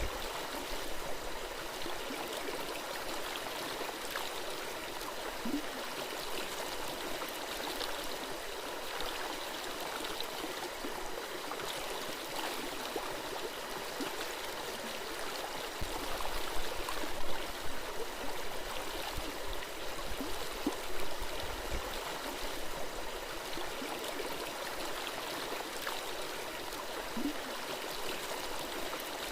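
Shallow forest stream flowing and gurgling steadily over rocks, with a few louder swells a little past halfway.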